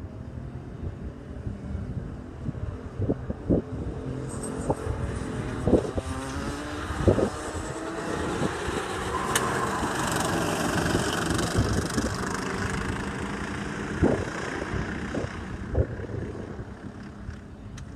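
Rotax Max 125cc two-stroke racing kart engines heard across the circuit, their pitch climbing as they accelerate and the sound growing loudest around the middle as they come closer. Several short low thumps break in, the loudest of them a few seconds in.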